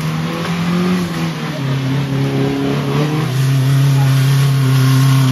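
Off-road 4x4's engine running hard, its pitch dropping about one and a half seconds in and then held steady.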